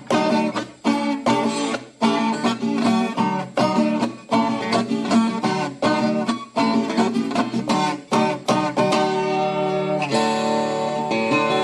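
Instrumental Brazilian viola caipira music: the ten-string country guitar plucked and strummed in a quick, steady rhythm, moving to longer held notes about ten seconds in.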